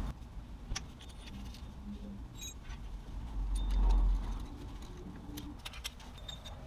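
Scattered light metallic clicks and clinks as a CV axle's inner joint is set against the transmission output flange and a bolt is started with a bit driver, with a dull low thump a little under four seconds in.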